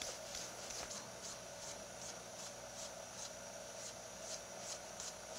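Steel knife blade stroked back and forth across the palm of a bare hand, stropping the edge as the final stage of sharpening: faint, soft swishes, about two or three a second, over a steady faint hum.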